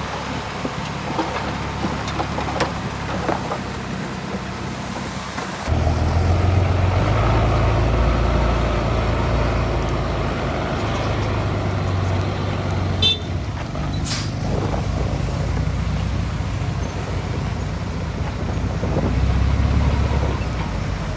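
Heavy diesel earthmoving machinery running: the low, steady drone of a bulldozer's and dump trucks' engines under load. About a third of the way in it turns abruptly louder and deeper, and a short sharp sound stands out about two-thirds of the way through.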